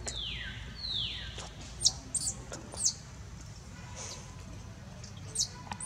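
Birds calling: two falling whistles in quick succession at the start, then a few short, very high chirps scattered through the rest.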